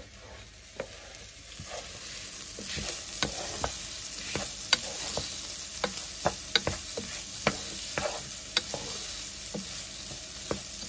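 Rice toasting in hot fat in a nonstick pot, sizzling, while a wooden spoon stirs it and knocks against the pot about once or twice a second. The sizzle builds up over the first couple of seconds and then holds steady.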